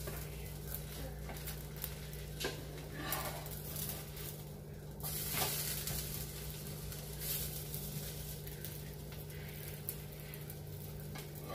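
A dosa sizzling in a hot pan while a spatula scrapes under it and folds it over, with the loudest scrape about five seconds in and a few sharper clicks of the spatula against the pan.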